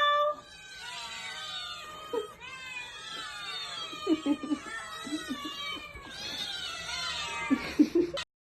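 Several cats meowing and yowling at once, their drawn-out calls overlapping at different pitches. The sound cuts off abruptly near the end.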